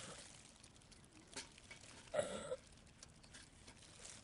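Faint crackles and light knocks and scrapes as a compressed-sawdust Ogalite briquette is handled and put into a small wood stove, with one louder short clunk about two seconds in.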